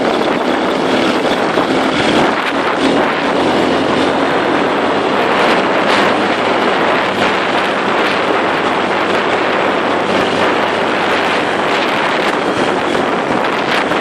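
Heavy wind buffeting the microphone over a dirt bike's engine running steadily while riding.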